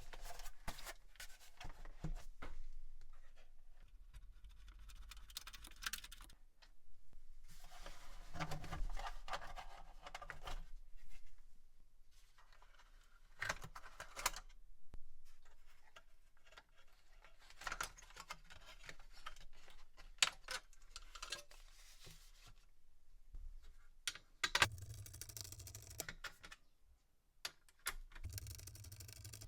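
Hands working on a mini desktop PC's case and parts: bursts of scraping and rubbing with sharp clicks of plastic and metal, separated by quiet gaps.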